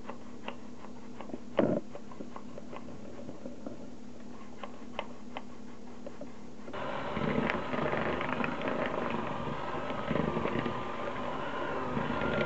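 Scattered light clicks as a plastic flour sifter is worked over a plastic bowl. About halfway through, an electric hand mixer switches on and runs steadily, beating cake batter.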